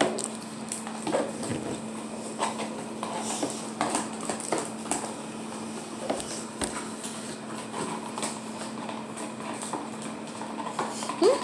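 Scattered light clicks and taps of a spoon and hands against a clear plastic tub as slime ingredients are stirred and the tub is tilted, over a steady hum.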